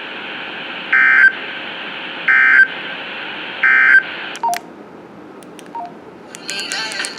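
Emergency Alert System end-of-message data tones: three short, harsh digital warble bursts about a second and a half apart, over steady broadcast hiss. The hiss cuts off after the third burst, and other program audio begins near the end.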